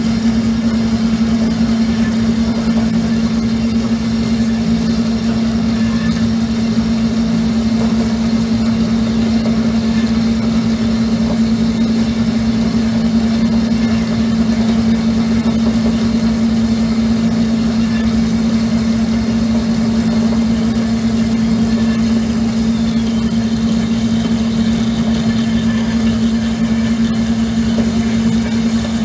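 Vertical metal-cutting bandsaw running steadily with a constant hum, its blade sawing through a metal block.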